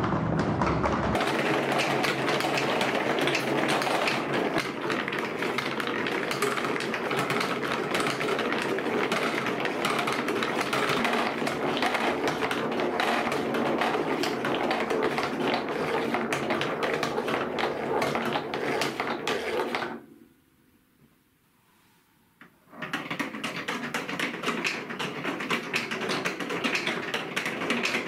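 Many marbles rolling and clattering down a Trix Track marble run, a dense stream of clicks and rattles as they run along the curved track pieces and knock together at the bottom. About twenty seconds in it drops to near silence for a few seconds, then the rolling and clicking starts again.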